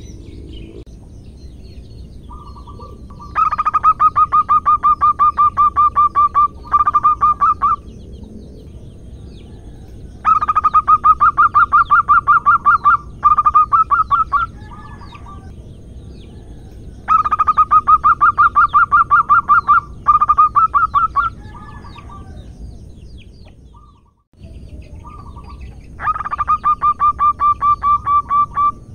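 Zebra dove (perkutut) calling in rapid staccato cooing trains: four bouts, each a long run of fast repeated notes followed by one or two shorter runs, which the uploader gives as a female calling a male to mate.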